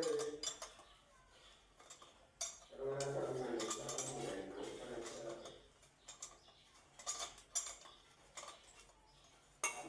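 Scattered light clinks and knocks of hard objects, with a stretch of low talk lasting about three seconds in the middle.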